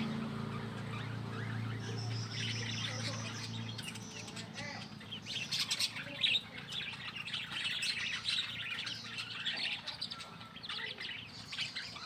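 Young chicks and ducklings peeping and chirping in many short, high calls, busier after the first few seconds. A low steady hum fades out in the first four seconds.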